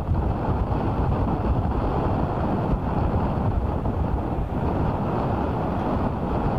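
Wind buffeting the microphone over the steady rumble of a taxiing Airbus A380's four jet engines.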